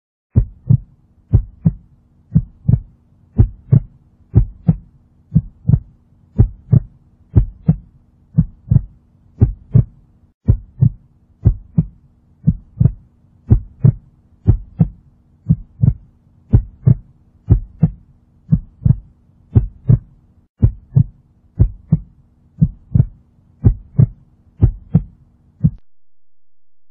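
Heartbeat sound effect: deep double thumps, lub-dub, repeating at a slow, steady pace over a faint hum, stopping shortly before the end.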